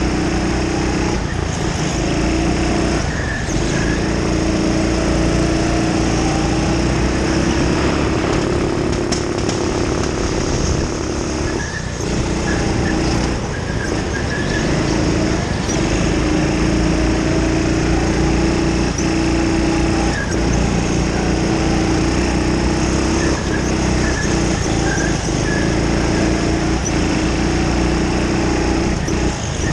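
Racing go-kart's small engine running hard at high revs, heard from on board, its pitch dipping briefly several times as the driver lifts off for corners and then climbing back.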